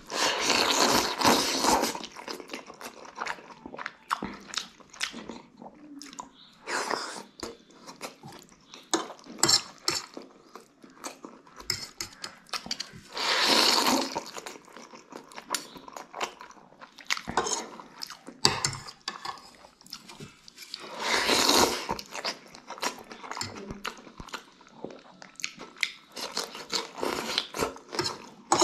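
Close-up slurping of thukpa noodle soup: three long, loud pulls as strands of noodles are sucked in, one at the start, one about halfway and one about three quarters through. Between them come wet chewing and smacking and short clicks of a metal fork and spoon.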